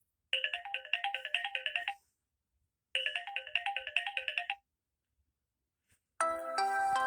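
Samsung Galaxy Tab A8 ringtone playing: a quick run of short, bright electronic notes about a second and a half long, played twice with a short pause between. Near the end a different, fuller ringtone starts.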